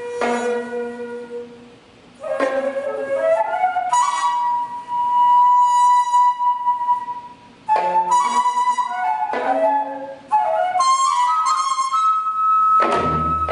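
Daegeum, the large Korean transverse bamboo flute, playing a slow melody in separate phrases, with a long held high note that wavers in the middle. A deep struck accompaniment note sounds near the end.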